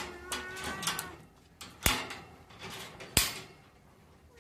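A cat's short meow, then two sharp metallic clicks about a second and a half apart as the metal hook-clip latch on a wire cage door is handled.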